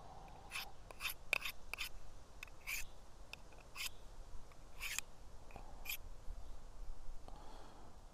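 Two steel knife blades scraping against each other in a dozen or so short, unevenly spaced strokes. The edge of a U-8 carbon-steel hunting knife is being drawn across a harder S390 steel knife used like a honing steel, and it goes over the steel like a file, straightening an edge that was knocked out of line.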